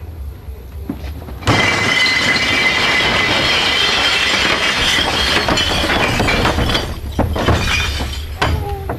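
Glass bottles poured from a barrel into a metal roll-off container, crashing and shattering in a loud continuous cascade that begins about a second and a half in, then thinning to scattered clinks near the end.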